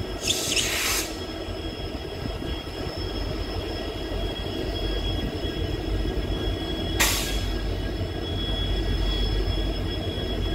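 Twin WDG4D diesel locomotives running at standstill, their EMD two-stroke diesels giving a low rumble that grows louder from about three seconds in, over two steady high whines. Short hisses of air come about half a second in and again near seven seconds.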